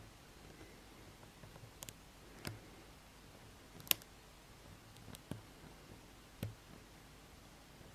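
Small sharp clicks, spaced irregularly, from a pick and tension wrench working the spool pins of a pin-tumbler challenge lock. The loudest click comes about four seconds in.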